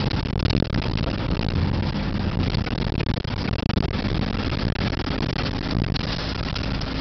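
Vehicle driving along a road: a steady engine hum under road rumble, with frequent small knocks and rattles.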